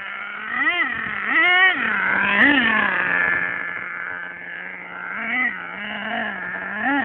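Savage X 4.6 nitro RC truck's small two-stroke glow engine with a chrome exhaust, idling high and steady and revved in short throttle blips: three quick rises in pitch in the first three seconds, then three smaller ones near the end.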